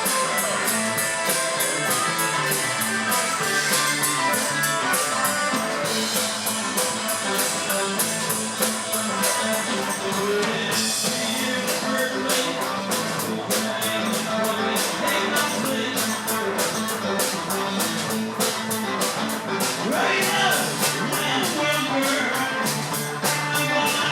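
Live rock band playing: electric guitar over drums with a steady beat.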